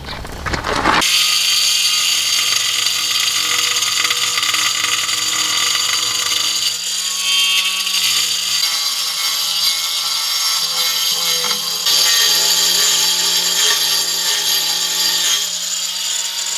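Electric power tool starting up about a second in and running steadily under load, a constant motor hum beneath a loud, dense high-pitched grinding hiss.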